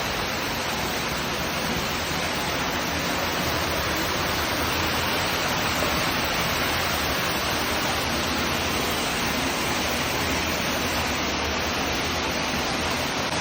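Steady rushing of an underground cave waterfall, falling water making an even, unbroken roar.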